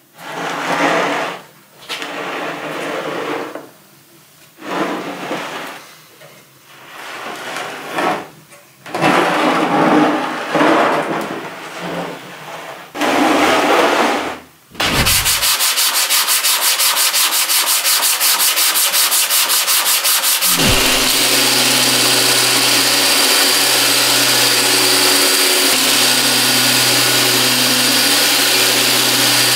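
Abrasive sanding or grinding in a series of short strokes with pauses between them. About halfway through, a power tool starts running continuously with a loud, even grinding hiss. About two-thirds through the sound changes to a steady run with a low hum underneath.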